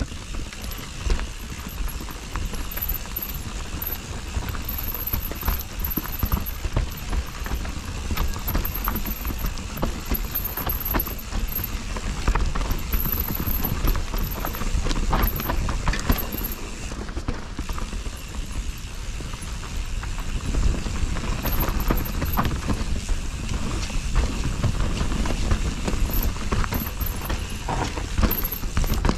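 Mountain bike riding fast down a rough forest trail: tyres rumbling over roots and the bike rattling and knocking with a dense, irregular run of clatters, over a steady low rumble.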